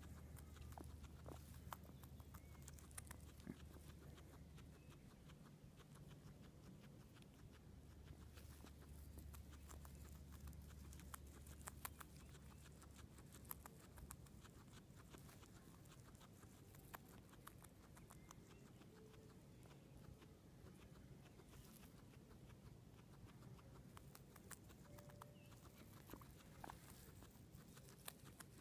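Guinea pig grazing close to the microphone: faint, rapid crisp clicks of its teeth tearing and chewing grass.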